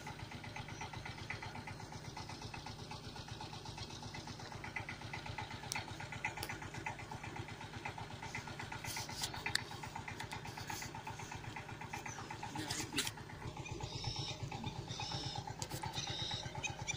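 A small engine running steadily at an even idle, with a few short clicks over it.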